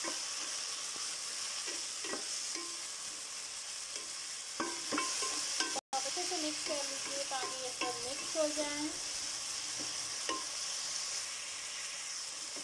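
Chopped tomatoes, peas and green chillies sizzling in hot oil with onions in a metal pot as a black spatula stirs them, with a few sharp scrapes and knocks of the spatula against the pot. A wavering pitched sound comes in the middle.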